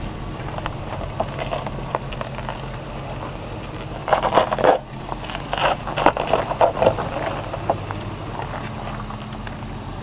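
Jeep Grand Cherokee rolling slowly over a stony dirt track: a steady low engine hum, with the tyres crunching and crackling over gravel and loose stones from about four to eight seconds in.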